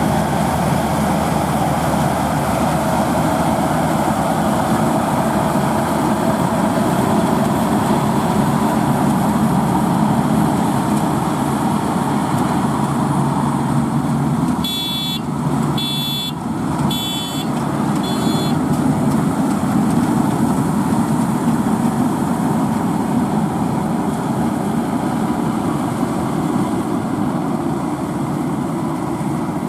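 Diesel farm machinery engine running steadily and loudly during rice harvesting. About halfway through, four short high-pitched beeps sound about a second apart.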